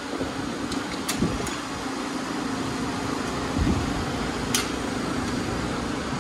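Steady mechanical hum of shop machinery, with a few light clicks as the metal radiator shutter assembly is handled.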